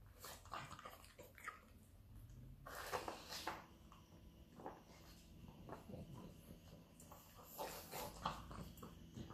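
Pug snuffling and snorting in short, irregular bursts with its nose in a plastic maze puzzle feeder, working the treats out.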